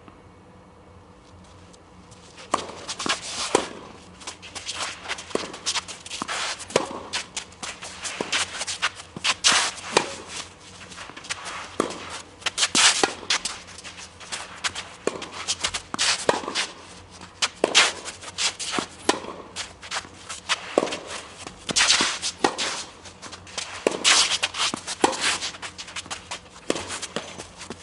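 Tennis play on a court: players' footsteps scuffing and shuffling, mixed with sharp hits of the ball, starting about two and a half seconds in.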